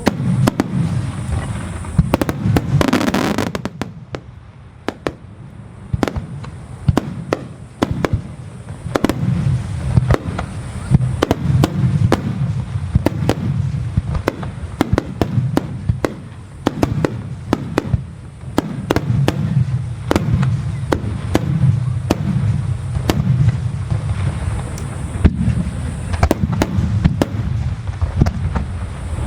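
Aerial firework shells bursting in quick succession: many sharp bangs, each trailed by a low rumbling echo. A stretch of dense hissing crackle comes about three seconds in.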